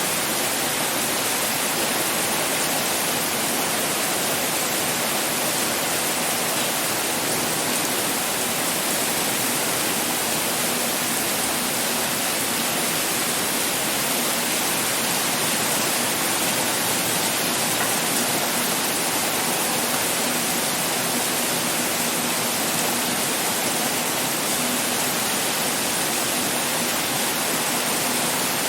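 Heavy pouring rain: a steady, dense hiss with no separate drops standing out.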